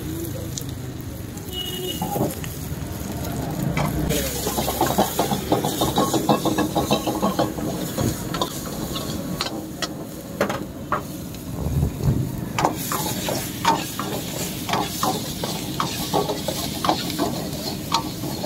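Chopped vegetables sizzling in a hot black wok over a gas flame, stirred and tossed with a long-handled steel ladle that scrapes and knocks against the pan again and again.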